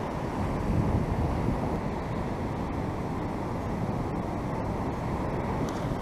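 Wind buffeting the microphone over the steady wash of surf breaking on the beach, with a stronger gust about a second in.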